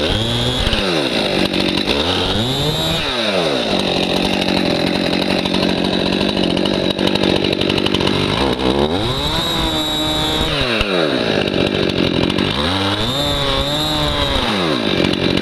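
Stihl MS261 C-M two-stroke chainsaw running hard while cutting up a downed white pine. Its engine note swells and falls back about four times.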